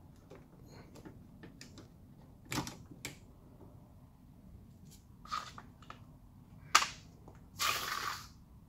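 Plastic trim on a car's rear door frame clicking and snapping as it is pried off by hand and handled. A few separate clicks come first, the loudest a single sharp snap about two thirds of the way through, followed by a brief rustling scrape.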